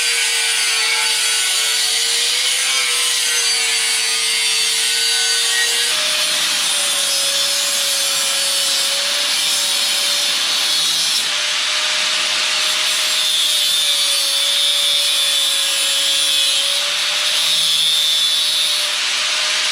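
Power tool cutting sheet metal: a steady motor whine over a hiss from the cut, the whine stepping a little higher about six seconds in and holding.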